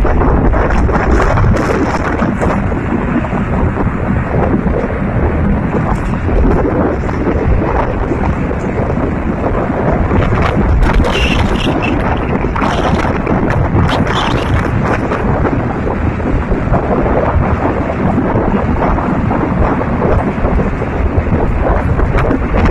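Strong wind buffeting the microphone on the open deck of a moving boat, over the steady rush of the boat's wake and whitewater along the hull in choppy sea.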